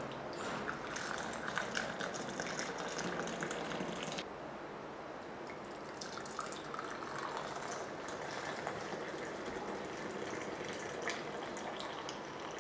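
Hot milky tea poured in a thin stream into a glass cup, trickling and splashing as it froths up. The pour is louder for the first four seconds, then drops suddenly and goes on quieter.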